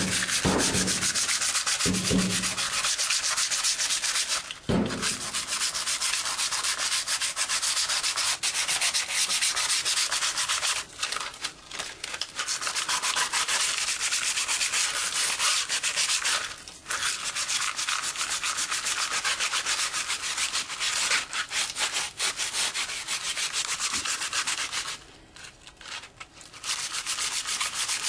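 Sandpaper rubbed by hand over the glossy blade of a graphite hockey stick: fast, scratchy back-and-forth strokes that roughen the finish so a coating will bond. The strokes stop briefly a few times, with a longer pause near the end.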